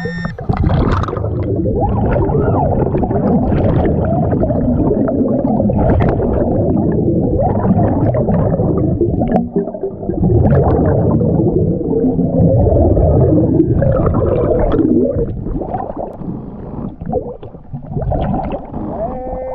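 Dense underwater gurgling and bubbling from a diver breathing on a Dive BLU3 Nomad battery-powered hookah regulator, heard through an underwater camera. It eases off near the end.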